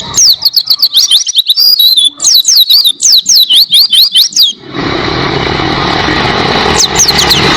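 White-eye (pleci) singing a long, fast run of high, sweeping chirps. About two-thirds of the way in, a steady hiss-and-rumble background comes up under the song, and the bird chirps on over it near the end.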